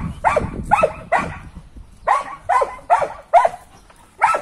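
Karelian bear dog barking at a bear: a string of about eight sharp barks, each dropping in pitch, with a short pause about a second and a half in.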